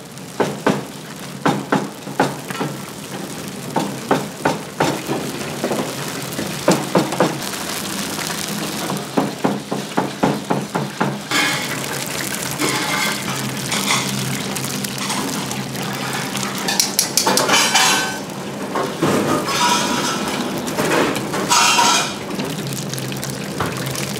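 Deep fryer of hot oil frying battered cuttlefish, with a metal utensil and wire-mesh skimmer clicking and clinking many times against the stainless-steel fryer well. From about halfway, several louder hissing bursts come as the pieces are stirred and scooped out.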